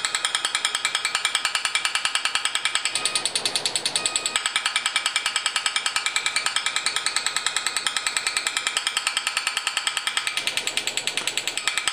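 Pulse-laser cavitation peening system firing into a water-filled chamber: a rapid, very even clicking at about ten pulses a second.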